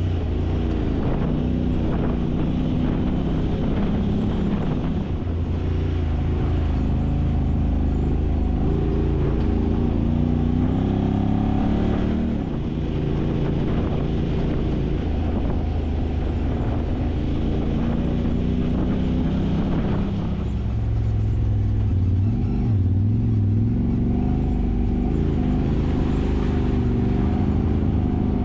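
Side-by-side UTV engine running under changing throttle, its pitch rising and falling, with a brief easing off about halfway through.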